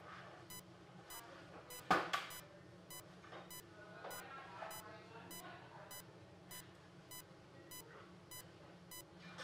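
Rapid, evenly spaced high-pitched electronic beeping, about three beeps a second, under faint handling sounds, with one sharp knock about two seconds in.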